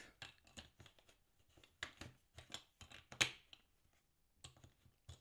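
Lego Duplo bricks and a figure being handled and pressed together: scattered light plastic clicks and taps, with one louder click about three seconds in.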